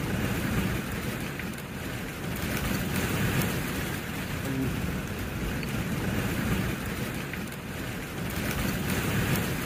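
Wind and rain rushing around a car, heard from inside the car, with wind gusting on the microphone; the noise is steady and swells and eases every second or two.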